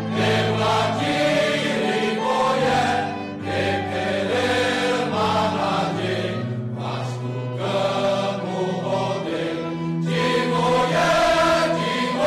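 Men's choir singing a hymn in several-part harmony, with held notes, over a light string accompaniment.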